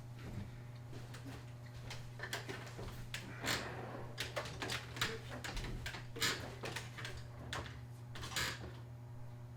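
Faint handling noises, a string of short clicks, knocks and rustles, over a steady low hum.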